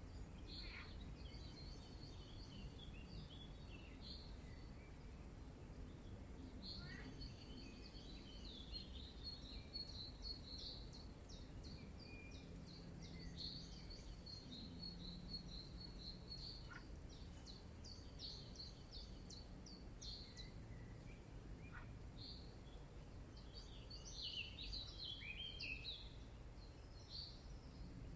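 Faint birdsong: small birds twittering and singing in quick high chirps and trills over a low steady background rumble.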